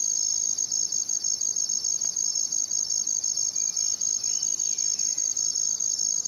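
Crickets chirping at night in a dense, steady chorus of fast, high-pitched trills.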